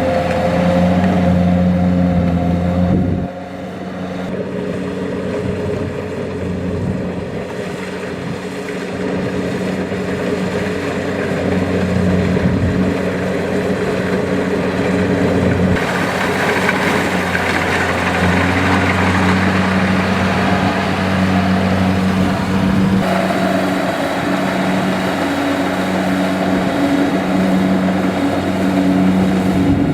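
Diesel engine and threshing machinery of a Kubota DC-70 rice combine harvester running steadily under load while it harvests. The sound drops suddenly about three seconds in and changes tone again twice later.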